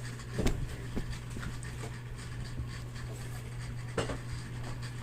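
Handling noise on a small device: a few short knocks, the loudest about half a second in and another about four seconds in, over a steady low hum.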